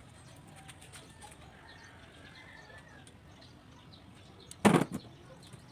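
Faint small clicks and ticks of hands handling a starter motor's brush holder and brushes, then, near the end, one loud, brief flurry of noise lasting under half a second.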